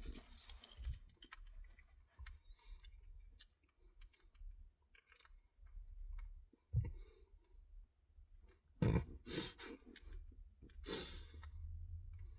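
Faint scattered clicks and a few brief rustles from a Halls cough drop being handled and sucked in the mouth.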